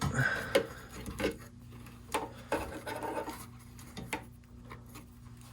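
Bundled power-supply cables being handled and pulled apart inside a NAS chassis: rubbing and scraping of the wires, with scattered light clicks and knocks, busiest in the first half.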